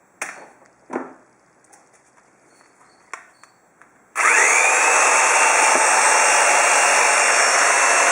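A few light knocks, then about halfway through a scroll saw switches on and runs steadily and loudly, its whine rising briefly as the motor comes up to speed. Its reciprocating blade is shaking an HDMI cable as a vibration test.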